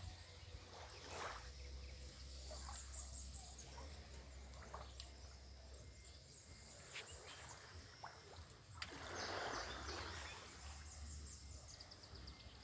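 Faint outdoor ambience of wind and lapping water: a steady low rumble with a few light clicks, and a louder rush about nine seconds in.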